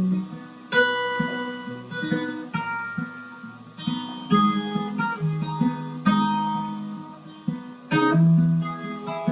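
Acoustic guitar playing an instrumental passage: picked notes and short strummed chords over bass notes, with no voice.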